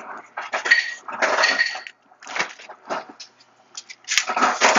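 Dishes and kitchen containers clattering and knocking together in a run of short bursts, two of them early on with a ringing clink.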